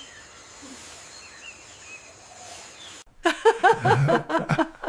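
Faint outdoor background with a few soft bird chirps, cut off about three seconds in by a loud burst of rapid, high-pitched giggling laughter, several short calls a second.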